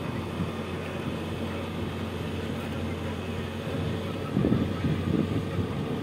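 Case backhoe loader's diesel engine running steadily as the machine drives slowly over the dirt. About four seconds in, a louder, rougher rumble comes in.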